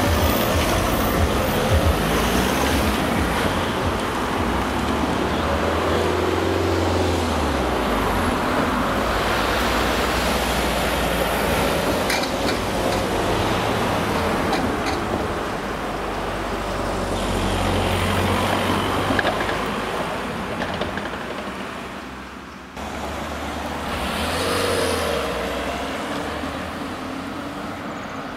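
Road traffic: cars and a van driving past one after another, engine hum and tyre noise swelling and fading as each goes by.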